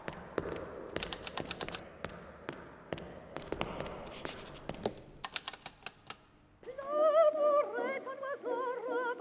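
Bursts of rapid, sharp mechanical clicking with scattered single taps, like typewriter keys. About two-thirds of the way in the clicking stops and a singing voice with a wide vibrato begins.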